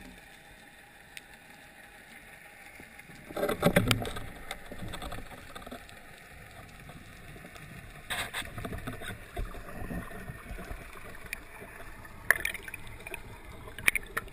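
Underwater noise from a freediving spearfisher swimming with the speargun-mounted camera: a faint steady water hiss, broken by loud knocks and rushing bursts a few seconds in, around the middle and near the end.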